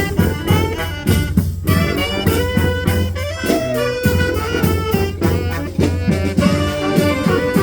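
Brass band playing live: horns sounding held and moving melody lines over a steady drum beat.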